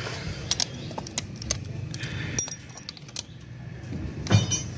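Metal hand tools and engine parts clinking and tapping, several scattered light clicks with a brief metallic ring, and a louder clank near the end.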